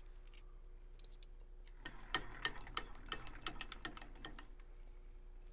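A quick run of small irregular metallic clicks and rattles lasting about two seconds, from hands working at a metal lathe after the bore is measured, over a faint steady hum.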